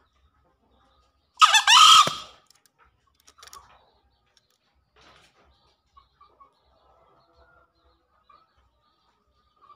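A male green junglefowl crows once, a short call about a second and a half in.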